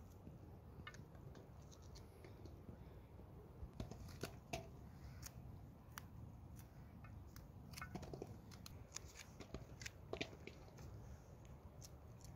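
Fresh okra pods being cut by hand with small knives: scattered sharp clicks and snaps as the pods are cut and the pieces drop into an aluminium bowl, a few of them ringing briefly, over a faint low rumble.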